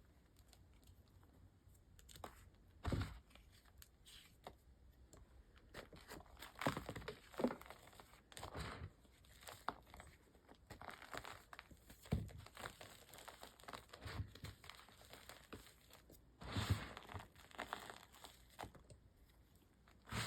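Reformed gym chalk being crushed, with irregular crunching and crumbling, the louder crunches about 3, 7, 12 and 17 seconds in.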